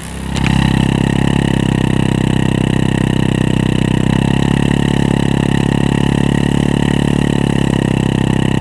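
Bajaj twin-spark motorcycle engine running at raised revs. The revs climb in the first half second as the throttle position sensor is plugged back in, then hold steady.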